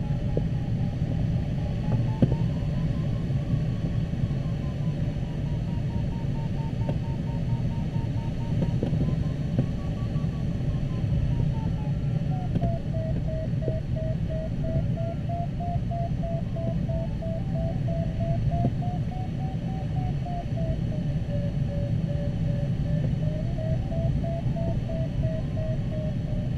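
Glider's audio variometer beeping rapidly, its pitch wavering up and down and settling lower about halfway through, a signal that the glider is climbing in lift. Under it runs steady airflow noise in the cockpit, with a few faint crackles.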